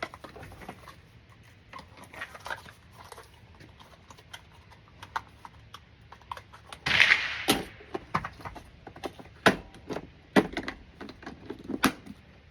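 Handling noise of guns and gear being packed into cases: scattered clicks and knocks, with a scraping sound about seven seconds in and a few sharper knocks after it.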